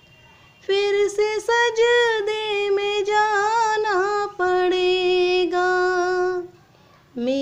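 A woman singing a naat solo, one melodic line with held and ornamented notes. She comes in under a second in and breaks off briefly near the end.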